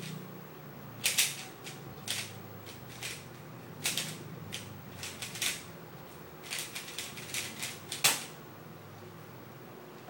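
A Lubix-lubricated Dayan Guhong 3x3 speedcube being turned at full speed, a rapid plastic clicking and clacking in quick bursts, with a sharper knock about eight seconds in where the turning stops.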